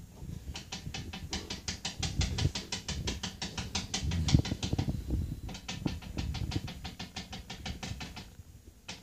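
Rapid, even tapping of a hard edge chopping powder into lines on a wooden cedar chest top, about six or seven taps a second, in two runs with a brief pause a little past five seconds.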